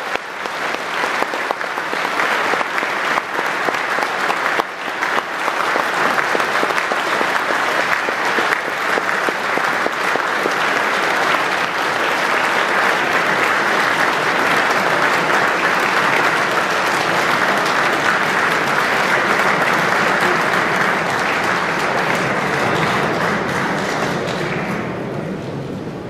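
A large audience applauding steadily in a big hall, the applause dying down near the end.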